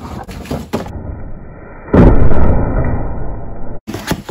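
Cardboard packaging handled during unboxing, with a sudden loud low boom about two seconds in that dies away over a second or two.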